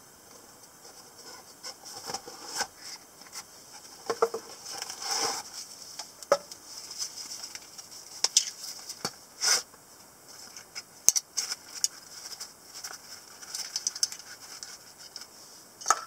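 Hands handling a cardboard knife box and a nylon belt sheath: scattered rustles, scrapes, taps and sharp clicks, with one longer rustle about five seconds in and a few louder clicks near the middle.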